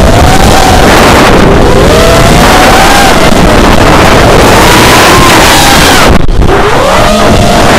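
FPV quadcopter's brushless motors and propellers, heard through the onboard camera with heavy wind noise: a loud whine whose pitch keeps rising and falling with the throttle. About six seconds in the sound briefly thins, then the whine climbs again.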